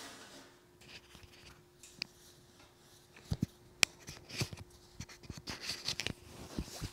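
Quiet handling noises of a person on a yoga mat: clothing rustling and a yoga block being shifted and set down on the floor, with a few light knocks and sharp clicks around the middle, over a faint steady hum.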